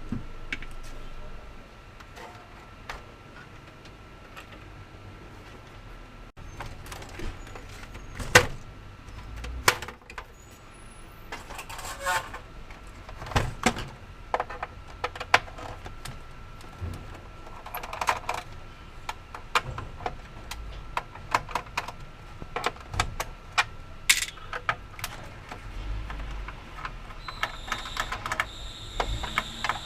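Scattered clicks, taps and light rattles of small hard parts and tools being handled, irregular and sometimes in quick clusters. A faint steady high tone runs under them for the first third, and another comes in near the end.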